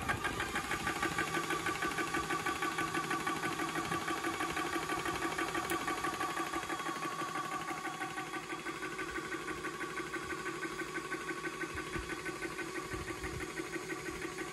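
Hatsan Tactair Volt portable high-pressure PCP compressor starting up and running, with a fast, steady pulsing from its pump. It is beginning to fill an air rifle from empty toward a 200 bar set pressure.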